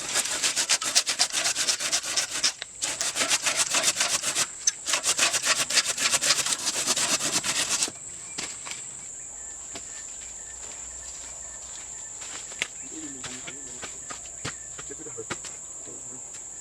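Rapid, loud rasping strokes of something scraping on wood for about eight seconds, broken by two brief pauses, then stopping abruptly. A steady high insect drone goes on underneath and continues alone afterwards.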